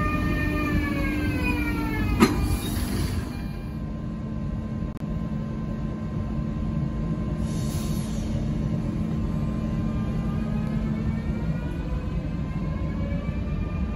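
Electric passenger train's traction motors whining, the pitch falling as it brakes to a halt, with a sharp click about two seconds in. From about ten seconds in, the whine rises again as the train accelerates away.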